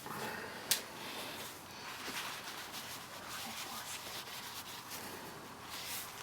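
Hands rubbing and scratching at a dog's fur and skin while working at a cyst on its back, a continuous scratchy rubbing with one sharp click about a second in.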